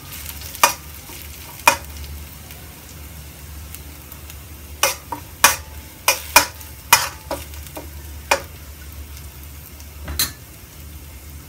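Garlic, chilli and dried shrimp sizzling steadily in hot oil in a wok while a metal spoon stirs them, scraping and clicking sharply against the pan about a dozen times, most often in the middle.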